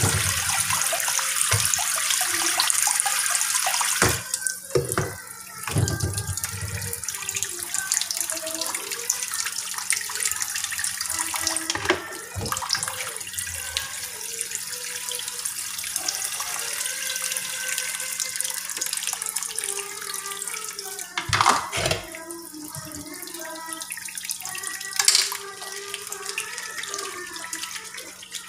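Kitchen tap running through a spray head into a sink as pans and dishes are rinsed under it. A few sharp knocks of cookware against the sink or other dishes.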